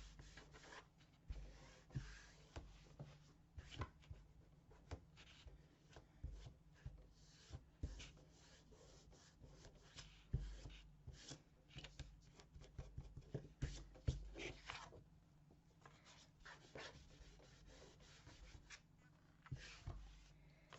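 Faint handling of glued paper and card on a tabletop: hands rubbing and smoothing the paper down, with scattered small taps and rustles and a few louder knocks in the middle.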